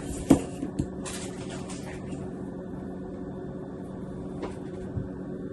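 Steady low hum in a kitchen, with a couple of light clicks in the first second and some faint rustling handling noise.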